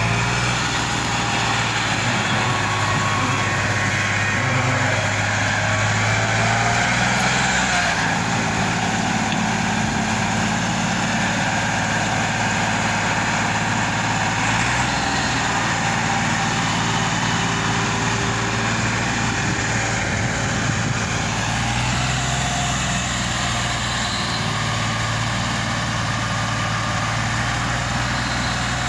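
Farm tractor's diesel engine running steadily under load, its pitch shifting a few times as it backs a loaded trolley into place and works the hydraulics that raise the tipping trolley to dump soil.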